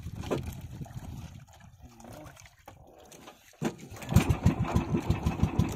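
The boat's engine knocks in slow, even pulses, dies down for a couple of seconds, then runs loud again just after a sharp knock about four seconds in.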